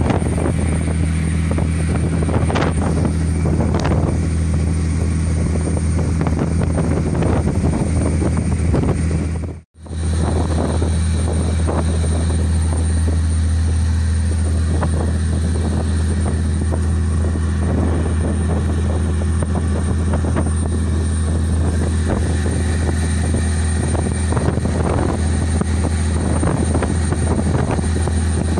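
Boat engine running with a steady low drone and hum, mixed with water and wind noise; the sound drops out for a moment about ten seconds in.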